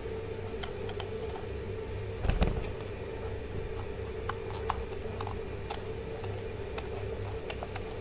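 Light clicks and scrapes of a corer hollowing out a zucchini, over a steady hum. A single heavier thump about two and a half seconds in.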